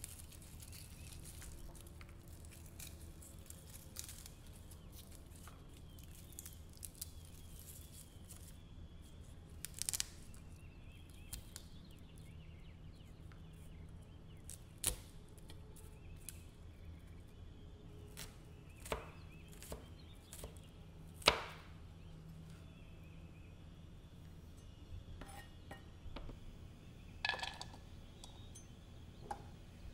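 Garlic cloves being cut with a kitchen knife on a plastic cutting board: scattered single sharp knocks of the blade on the board, the loudest about two-thirds of the way through, over a faint low hum.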